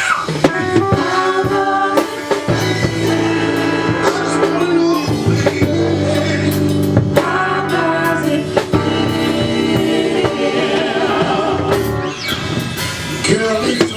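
Live band playing a song with singing, backed by drum kit, bass, keyboard and electric guitar, with steady drum hits.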